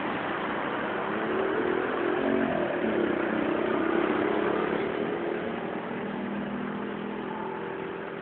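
A motor vehicle's engine passes close on a wet road. It swells about halfway through and fades near the end, over a steady hiss of rain and wet pavement.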